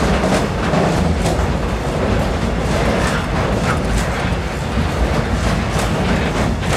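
Train running on the line: a steady rumble of wheels on rails with irregular clicks and clatter from the wheels over the track.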